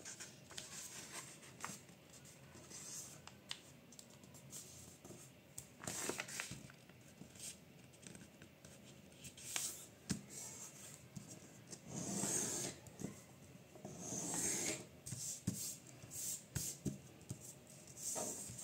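A sheet of printer paper being folded and creased by hand, fingers rubbing and sliding along the folds with scattered light taps. Two longer rustles come in the second half, and another near the end.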